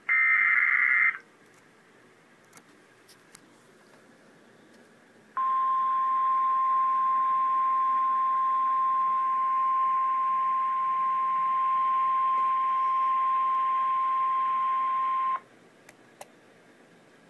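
Emergency Alert System weather warning tones: the last, about one-second burst of the buzzy SAME digital header, then a few seconds' pause, then the steady single-pitch NOAA Weather Radio 1050 Hz warning alarm tone held for about ten seconds before cutting off sharply.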